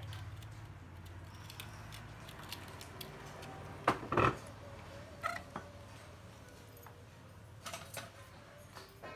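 Scattered clicks and light clatter of hands handling enamelled copper magnet wire and a plastic coil-winding former, loudest in a short cluster of knocks about four seconds in, over a faint low hum.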